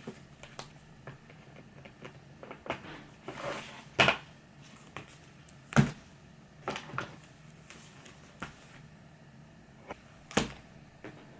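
Hard knocks and light taps, scattered and irregular, from a calendar being hung on a wall. There are three loud knocks about four, six and ten seconds in, with a brief rustle just before the first.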